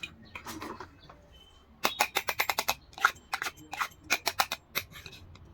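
Small dollhouse pieces being handled: a quick, uneven run of about twenty sharp clicks and taps over some three seconds, after a brief faint rustle.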